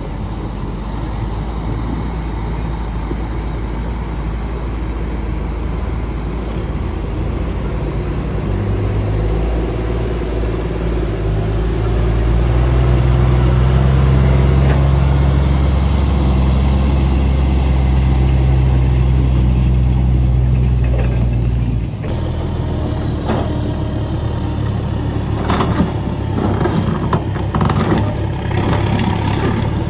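Heavy construction machine's engine running under load, working harder through the middle and easing off suddenly about two-thirds of the way in, followed by a few sharp clanks near the end.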